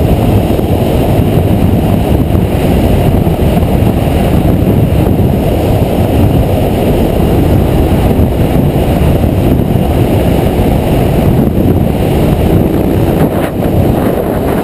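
Steady wind rush on a motorcycle-mounted camera's microphone while riding at road speed, with the motorcycle's engine running underneath.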